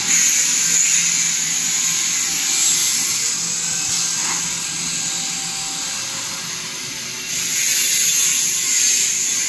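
CNC nesting router running: a steady, high-pitched whine and hiss from the machine. It swells louder about seven seconds in.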